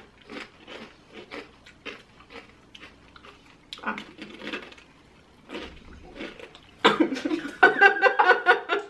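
Crunching and chewing of Barcel Chips Diabla potato chips, many short crisp crunches. Near the end, louder laughter and coughing, the coughing from the spicy chips.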